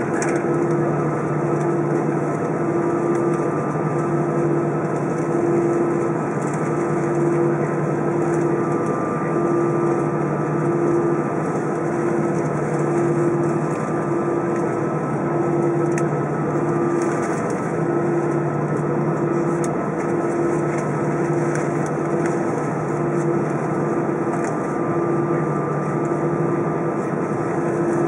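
Airbus A320's jet engines at idle while taxiing, heard inside the cabin: a steady hum and rushing noise over a low drone that throbs regularly, roughly once a second.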